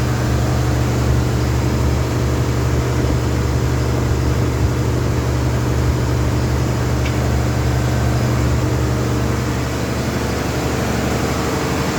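A machine running steadily with a low, even hum that does not change.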